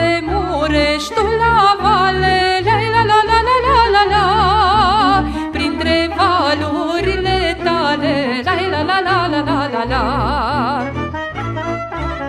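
Romanian folk party music: a lead melody with wide vibrato over a steady bass beat and accompaniment.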